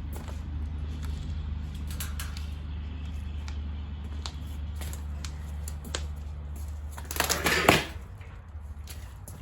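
Scattered light clicks and knocks of parts being handled, with one loud scraping rustle about seven seconds in, over a steady low hum that stops shortly after.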